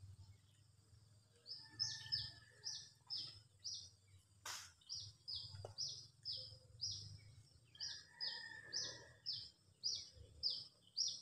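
A bird calling over and over: short, high chirps, each falling in pitch, about two to three a second, starting about one and a half seconds in. A single sharp click sounds near the middle.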